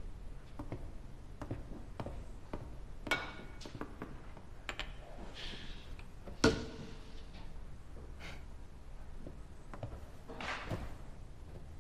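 Scattered soft taps and thunks from a golf putter striking a ball on an indoor putting mat. The loudest, sharpest knock comes about six and a half seconds in.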